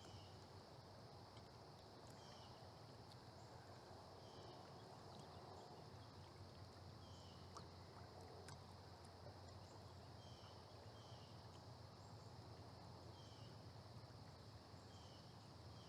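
Near silence: faint river-side ambience with a steady high hiss and occasional short faint chirps.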